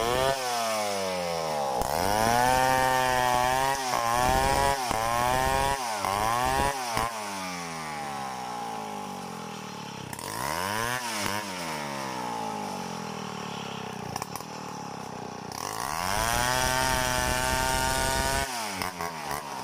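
Stihl 070 two-stroke chainsaw freehand-milling a log into boards. The engine revs up and down several times, runs lower and steadier through the middle, then climbs to a high pull again near the end.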